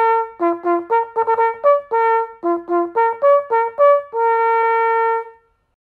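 A solo brass instrument playing a brisk tune of short notes, ending on one long held note that stops just before the end.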